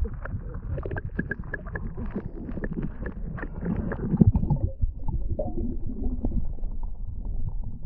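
Muffled underwater gurgling and sloshing picked up by a camera held under the lake surface, with scattered small knocks and crackles of water and bubbles against it.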